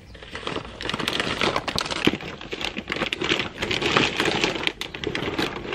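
Scissors snipping through a plastic mailer bag, then the plastic crinkling and rustling as a cardboard shoe box is pulled out of it.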